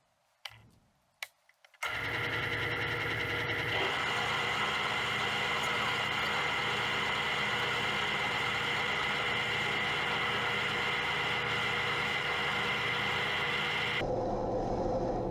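Atlas QC54 metal lathe, quiet at first apart from a few clicks, then switched on about two seconds in and running steadily: motor, belt drive and gear train whirring with a steady high gear whine. The carriage is being fed through freshly 3D-printed PLA half nuts at a fine feed to test them. The high part of the sound drops away near the end.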